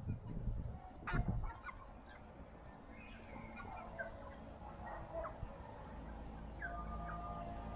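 Mixed flock of hens foraging, giving scattered short clucks and calls, with a couple of longer drawn-out calls near the end. A sharp knock about a second in is the loudest sound.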